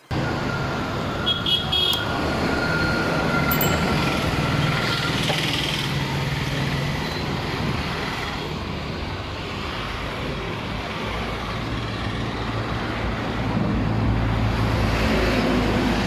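Street traffic with auto-rickshaws, motorcycles and a truck running past, and a few short horn toots about a second and a half in. A nearby engine grows louder near the end.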